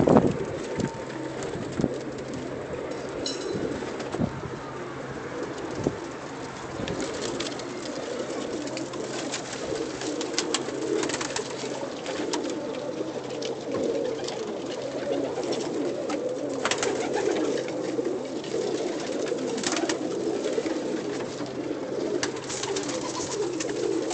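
Many domestic pigeons cooing together in a loft, a continuous overlapping murmur with scattered small clicks and taps.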